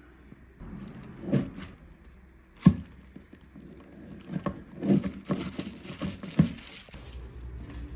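A handful of scattered knocks and bumps, the sharpest about two and a half seconds in and several more close together in the second half, over a faint low rumble.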